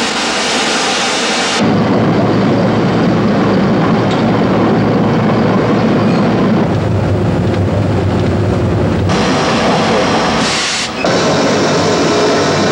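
Norfolk & Western 611 steam locomotive sounds in edited cuts: a loud hiss, switching about a second and a half in to a deep, steady rumble of the engine working, then back to the hiss around nine seconds in, with a brief dip near eleven seconds.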